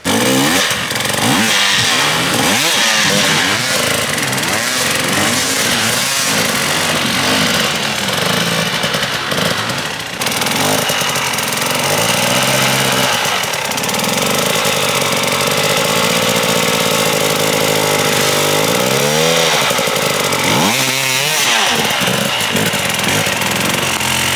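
Two-stroke enduro motorcycle engine revving hard and unevenly, its pitch repeatedly rising and falling with bursts of throttle.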